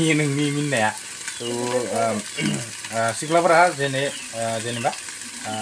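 A man talking over the steady sizzle of food frying in a pan.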